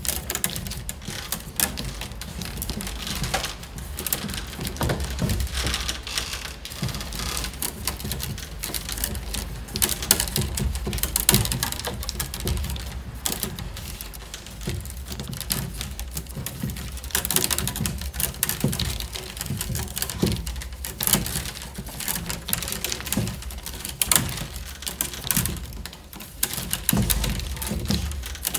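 Peeled wicker rods being woven by hand: a constant run of irregular clicks, taps and rustles as the willow rods are worked around the basket's stakes.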